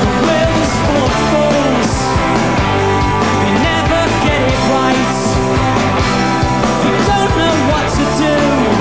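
Live Britpop band playing with a steady drum beat under bass and guitars, with sliding melodic lines over the top.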